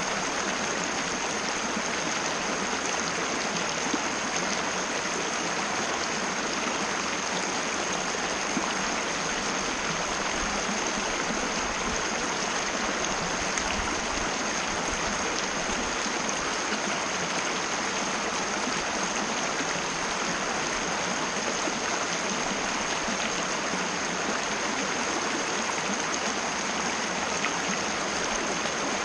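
Mountain river rushing over rocks in a steady, even flow. A thin, steady high tone runs through it.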